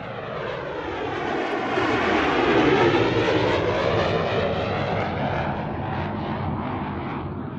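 Four-engine turboprop patrol aircraft of the P-3 Orion family, with Allison T56 engines, flying past. Its drone swells to a peak about three seconds in, then slowly fades, the tone sweeping as it goes by.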